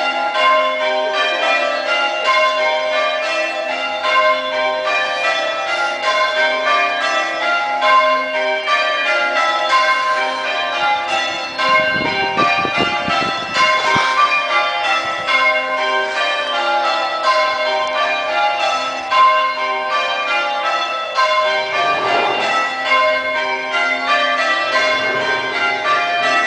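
A ring of church bells rung in call changes: one bell after another strikes in a steady, even rhythm, the order shifting as changes are called.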